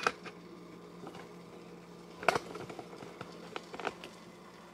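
Quiet kitchen sound with a faint steady low hum and a few sharp clicks, the loudest about two seconds in, followed by a few small ticks.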